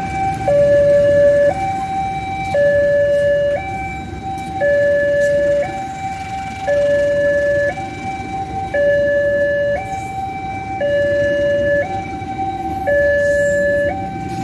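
Railway level-crossing warning siren sounding a two-tone hi-lo alarm, switching between a higher and a lower note about once a second. Under it runs the low rumble of passenger coaches rolling past on the track.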